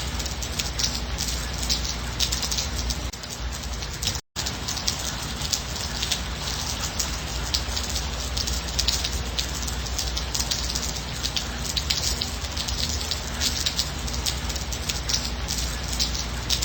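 Steady gentle rain, many individual drops pattering close by. The sound cuts out completely for a split second about four seconds in.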